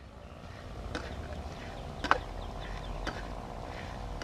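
Metal spatula clinking against a metal pan while crickets are stir-fried: three sharp taps about a second apart, the middle one loudest, over a steady low rumble.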